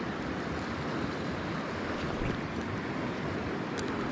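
Steady rush of flowing river water, with wind on the microphone.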